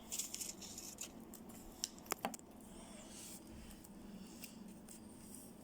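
Faint handling of paper craft pieces: soft rustles with a few small clicks about two seconds in.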